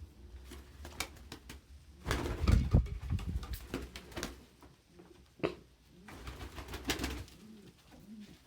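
Domestic pigeons cooing in a loft, with scattered clicks and two louder bursts of thumping and rustling, about two seconds in and again near seven seconds.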